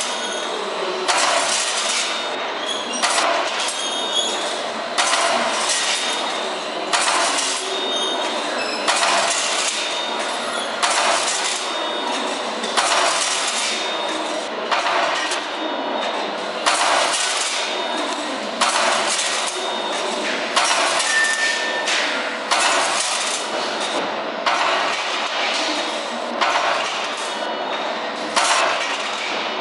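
Steel strip straightening and cutting line running: a steady mechanical clatter with a sharp metallic clack about every two seconds as the strip is cut to length.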